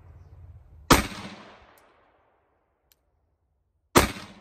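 Two pistol shots fired about three seconds apart, each a sharp crack that trails off over about a second.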